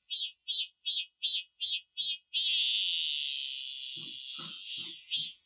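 Cicada singing: a run of short pulsed calls about two and a half a second, breaking a little past two seconds in into one long continuous drone that slowly fades, then pulsing again near the end. A lower pulsing sound at the same pace joins about four seconds in.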